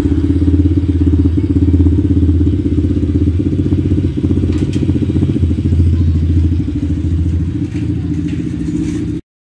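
125 cc dirt bike's single-cylinder engine running steadily at an even speed, freshly restarted after two years standing. The sound cuts off suddenly near the end.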